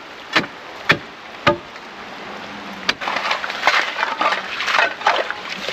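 Ice cracking and crunching: a few sharp cracks about half a second apart, then a dense run of crackling and breaking over the last half.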